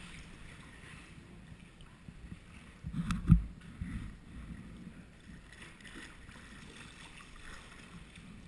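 Sea kayak paddled on calm water: paddle strokes splashing and water lapping at the hull. A louder thump and splash come a little after three seconds in.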